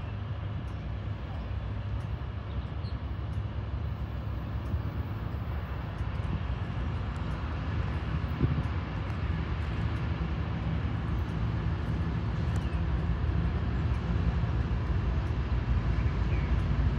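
Diesel freight locomotives approaching from a distance: a low, steady engine rumble that grows gradually louder.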